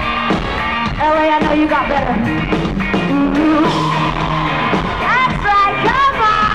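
Live rock band playing loud, with a woman singing the lead melody over the guitars and drums.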